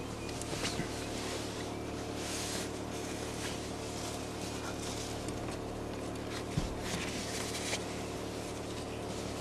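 A vehicle's engine running steadily at an even pitch, with noise and brief bursts of hiss over it, and a single low knock about two-thirds of the way through.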